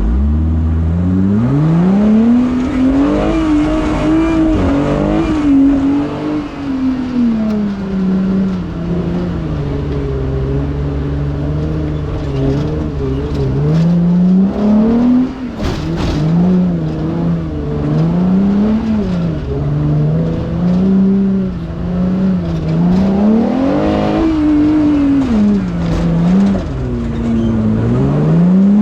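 An off-road race vehicle's engine revving, its pitch climbing and falling over and over, every second or two in the second half. There are a few sharp knocks about halfway through.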